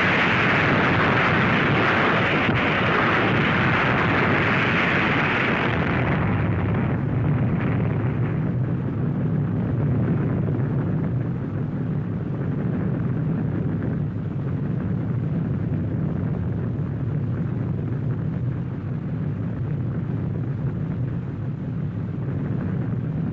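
Dubbed atomic-blast sound effect on an old film soundtrack: a loud, steady roar that thins after about six seconds into a lower continuous rumble.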